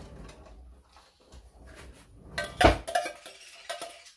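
Coconut milk pouring from a tin can into a frying pan, then a spatula knocking and scraping inside the metal can: a string of metallic clinks with a loud clank about two and a half seconds in.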